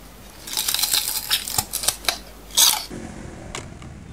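Close-up crunching of raw bitter gourd being bitten and chewed: a quick run of crisp, crackly crunches for about two and a half seconds, with the sharpest crunch near the end.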